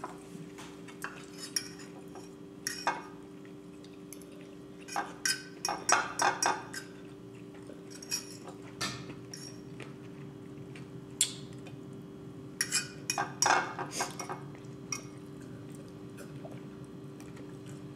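Metal fork clinking and scraping on a ceramic plate while eating, in scattered clusters of short clicks, over a faint steady hum.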